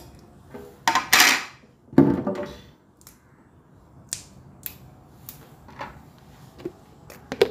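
Fresh yard-long beans being snapped into short pieces by hand: a string of short, sharp snaps about every half second, after two louder rustling noises in the first two seconds.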